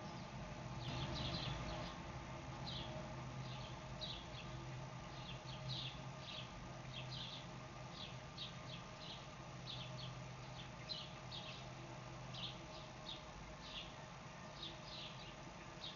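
Underwater sound in a koi pond: a steady low hum under many short, irregular high-pitched clicks, several a second.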